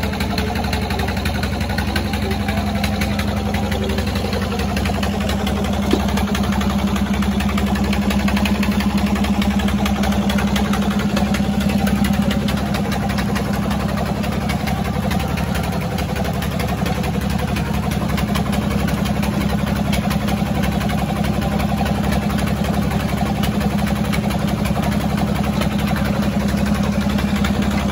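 Small screw-type mustard oil expeller running steadily, a constant machine hum as it presses mustard seed and pushes out oil cake.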